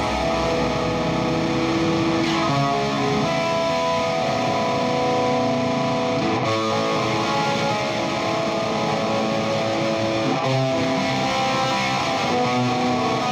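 Background rock music led by electric guitar.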